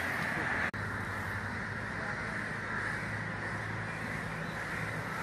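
Many crows cawing together as a steady outdoor chorus, with a brief dropout in the audio less than a second in.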